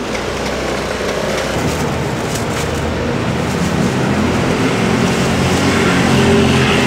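A motor vehicle's engine running steadily and growing louder as it draws closer, over street noise.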